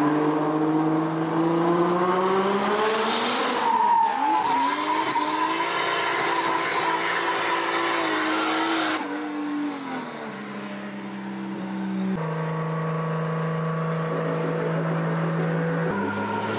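Car engine heard from inside the cabin: it revs up for about three and a half seconds, breaks off briefly as if for a gear change, then runs at a steady drone while cruising. The pitch and level jump abruptly several times, at each cut between driving shots.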